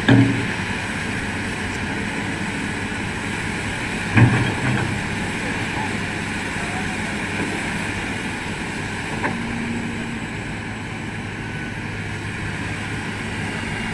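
Heavy excavator diesel engines running steadily with a low hum, with two brief louder bursts, one at the start and one about four seconds in.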